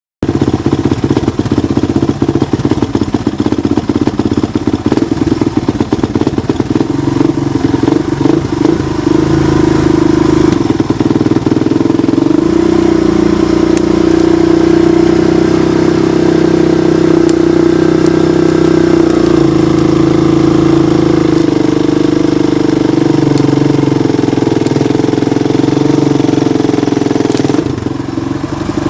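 Engine running loudly and steadily, its pitch stepping up and down a few times.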